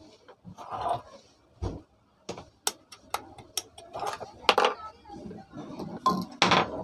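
Irregular metallic clicks, clinks and knocks of hand tools and ceiling fan parts being handled during disassembly, a few of them ringing briefly.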